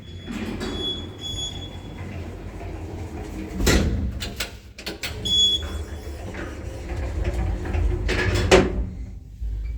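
KMZ passenger lift's sliding doors moving and clunking over a steady low rumble from the lift, with two loud knocks, about 4 and 8.5 seconds in.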